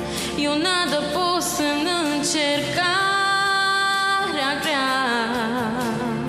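A woman singing a Romanian Christian worship song solo over steady accompaniment: a richly ornamented melody with quick runs, a long held note in the middle, then more runs.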